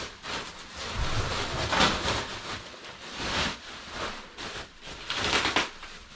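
Bubble wrap rustling and crinkling in irregular scrunches as it is handled and pulled back off a bicycle wheel.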